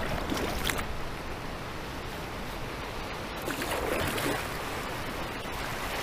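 River water rushing and splashing around a kayak, with a sharp splash near the start.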